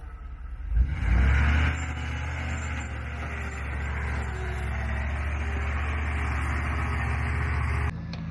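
Vehicle engine running steadily. It comes up about a second in and cuts off abruptly near the end.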